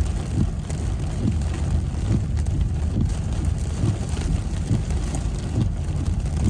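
Steady low rumble inside a car driving through a storm: road and engine noise mixed with wind and rain against the car.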